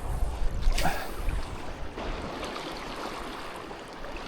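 Shallow sea water sloshing and lapping on a reef flat, with a low wind rumble on the microphone in the first second and a brief splash or swish a little under a second in.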